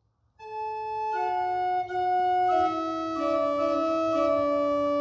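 Organ playing slow, held chords as the introduction to a hymn, beginning about half a second in.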